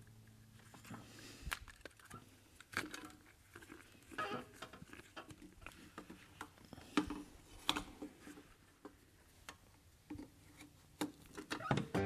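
Faint, scattered clicks and rustles of hands working a tractor control lever's rubber boot and a joystick knob with its cable.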